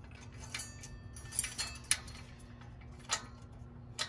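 Light metallic clicks and clinks, about five spread through, as a bolt and washer are fitted through the zinc-plated steel bracket plate of an adjustable welding table.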